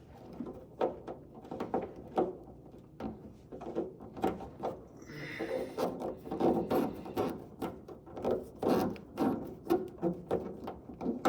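Irregular light knocks, clicks and rubbing from hand work on the front spoiler and inner fender: parts and fasteners being handled and fitted, with a short scrape about five seconds in.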